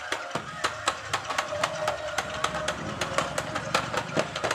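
Battery-powered 360° stunt RC car running and tumbling on a tile floor: its small motor hums steadily while the plastic wheels and body clack against the tiles in quick, irregular clicks.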